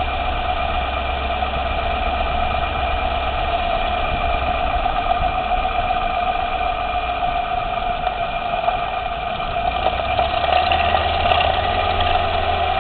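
Lexus LS 460L's 4.6-litre V8 running at a steady idle, a constant hum with a strong mid tone that shifts slightly about ten seconds in. A faint click comes near the end.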